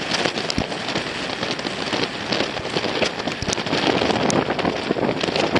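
Strong wind buffeting the camera microphone: a loud, steady rough rush full of crackles and pops.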